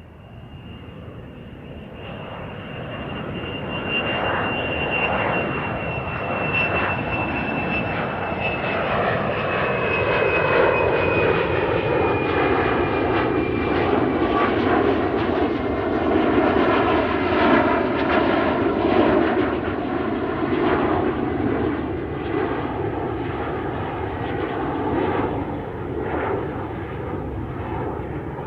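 Airplane engines during take-off: the noise builds over the first ten seconds or so, then holds as a loud, steady rush. A high whine slowly falls in pitch early on.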